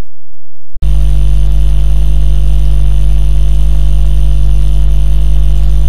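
Loud, steady electrical hum with hiss in the sound feed, cutting in suddenly after a split-second dropout about a second in. It is a low mains buzz with its overtones, and it holds unchanged, the sign of a fault or switch in the recording or stream feed.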